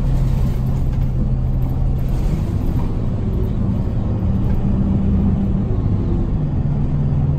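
City bus engine running and road noise heard from inside the passenger cabin while the bus drives. The low engine hum shifts in pitch a few times.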